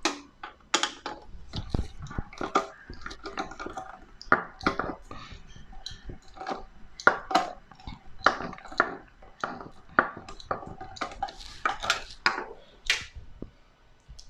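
Hand tools and removed bolts clinking and clattering as a dishwasher is taken apart: many irregular sharp clicks and taps.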